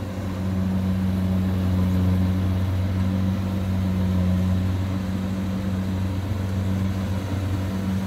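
Kubota DC70 Plus combine harvester's diesel engine running steadily under harvesting load, a continuous low drone with no change in pitch.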